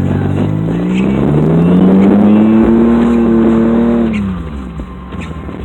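Vehicle engine revving: the pitch climbs steadily over about two seconds, holds high, then drops away about four seconds in as the throttle is let off.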